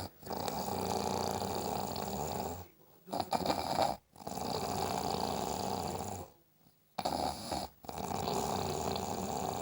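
A person snoring: three long snores of about two seconds each, coming roughly every four seconds, with short, choppy breaths in the gaps between them.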